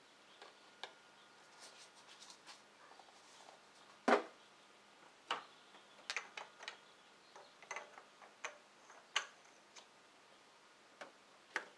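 Scattered light clicks and knocks of hand-handled engine parts as the oil funnel is lifted out and the oil filler cap is screwed back onto the valve cover, with the loudest knock about four seconds in.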